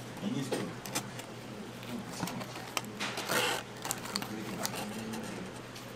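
Faint background voices with scattered clicks and a short rustle about three seconds in.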